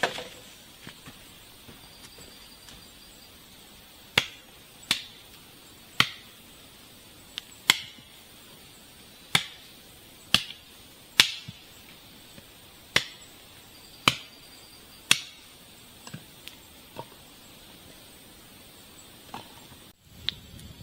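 Wood being chopped: about eleven sharp chops at an uneven pace of roughly one a second, then a few lighter knocks near the end, over a steady high drone of forest insects.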